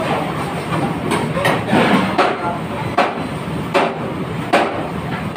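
Kitchen work noise: sharp knocks, roughly one every second, over a steady rushing background, with faint voices.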